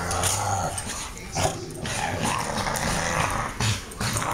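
Two dogs play-fighting, the puppy growling steadily in a low voice, loudest in the first second, over the scuffling of their bodies and paws on a wooden floor.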